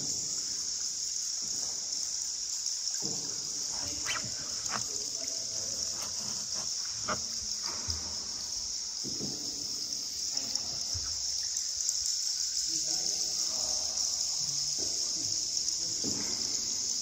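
A steady, shrill chorus of insects, with water lapping and trickling beneath it. A few sharp knocks come and go, and low voices murmur faintly in the background.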